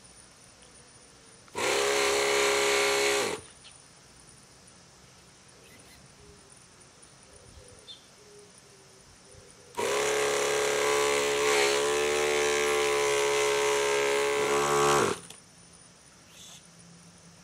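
Hand-held electric starter cranking an OS .61 SX glow engine in an RC helicopter, left unused for fifteen years. It runs twice: a short burst of about two seconds, then a longer one of about five seconds. Each time its whine winds up and down, and it falls quiet as soon as the starter stops, so the engine does not fire.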